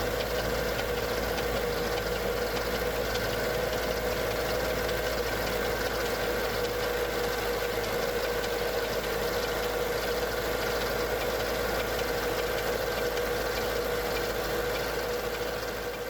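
Mercedes-Benz E55 AMG's supercharged 5.4-litre M113K V8 idling on a cold start, with a rapid mechanical ticking and clicking from the left cylinder bank. The owner suspects the hydraulic lifters or the timing chain, and the noise goes away once the engine is warm. The sound fades out near the end.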